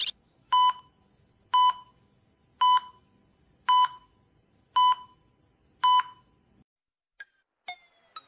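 Six short electronic beeps at one steady pitch, about one a second, like a countdown sound effect. Near the end come a few faint, quick ticks, about two a second.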